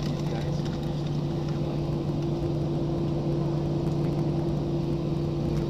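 Jet engines of an Airbus A320-family airliner, heard inside the cabin while on the ground: a steady drone with a low hum and a steady higher tone running through it.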